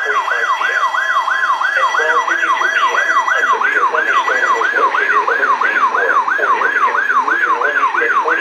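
Weather alert radio receiver's siren alarm: a loud electronic tone warbling up and down about three times a second, signalling that a new warning is coming in.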